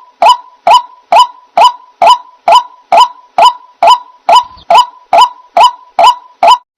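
White-breasted waterhen calling: one short, harsh note repeated at a very even pace, about two a second.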